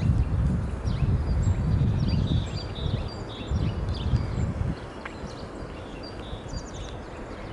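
Small birds chirping in many short, repeated high notes, over a loud low rumble that eases off about five seconds in.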